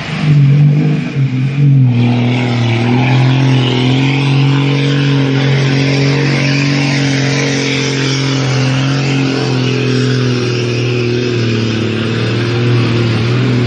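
Cargo truck's engine running at steady revs as it wades through a fast-flowing flooded river, over the rush of muddy water around the cab. The engine note wavers in the first couple of seconds, then holds steady.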